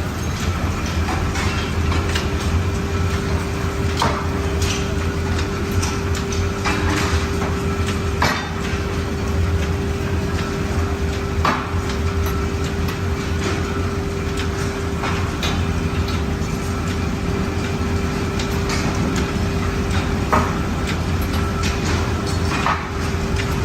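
Leaf-spring factory machinery running with a steady low hum and a constant tone, with sharp metal clanks and knocks at uneven intervals, about a dozen of them.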